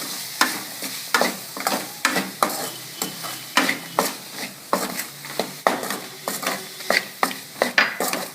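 Chopped onions with curry leaves frying in oil in a pan, sizzling steadily while a utensil stirs and scrapes them, with a stroke roughly every two-thirds of a second. The onions are being sautéed until soft.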